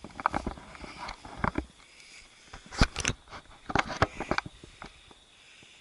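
Footsteps climbing a dry grass and dirt trail, in irregular clusters of steps with grass rustling; the loudest cluster comes about three seconds in.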